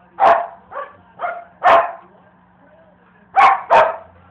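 A large black-and-tan dog barking: a run of four barks, a pause of about a second and a half, then two more barks in quick succession.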